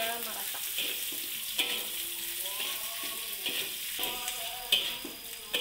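Metal slotted spatula scraping and stirring eggplant through chili balado paste in a steel wok, with the paste sizzling. The scrapes come roughly once a second.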